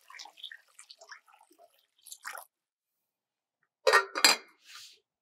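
Last drips of water falling into an enamel pot of green papaya chunks, a short rattle, then a glass pot lid clinking twice against the pot's rim as it is set on, with a softer shuffle after.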